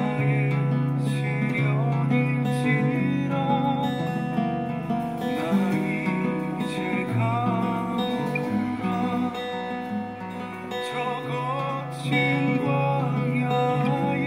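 Acoustic guitar played fingerstyle: held bass notes under a plucked melody, playing on without a break.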